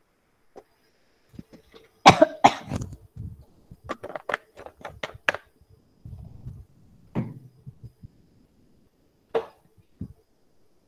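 A person coughing: one loud cough about two seconds in, then a quick run of short sharp sounds and a few more scattered ones.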